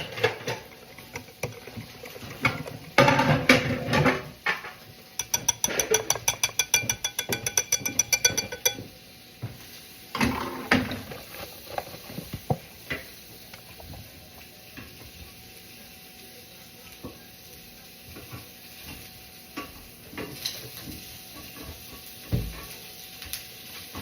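Kitchen dishes and utensils being handled: a loud clatter about three seconds in, then a rapid buzzing rattle for about three and a half seconds, then scattered quiet clinks and knocks.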